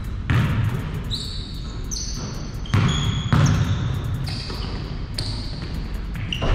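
Basketball bouncing a few times on an indoor court, with sneakers squeaking on the hardwood floor.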